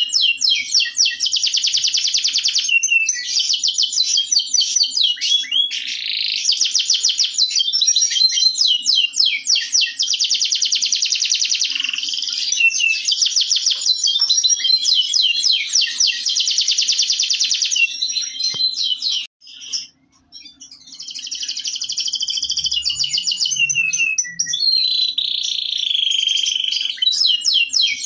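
Domestic canary of Indonesian local stock singing a long, nearly unbroken song of rapid high trills and rolls, breaking off briefly about two-thirds of the way through before starting up again.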